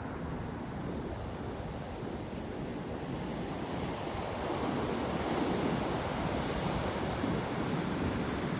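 Ocean surf: waves breaking and washing up the shore in a steady rush. One surge of water swells about four seconds in and eases off near the end.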